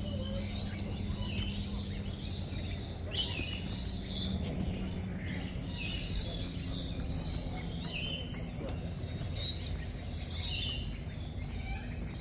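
A flock of lories and lorikeets calling, with many short, shrill chirps and screeches overlapping and a few louder calls standing out.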